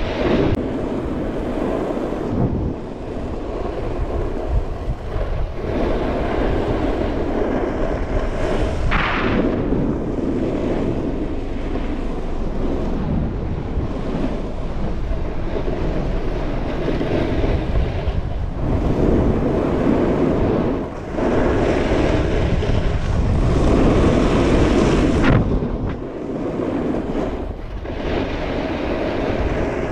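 Wind rushing over the camera microphone while a snowboard slides down a groomed slope. The board scrapes over the snow in swells that rise and fade every few seconds.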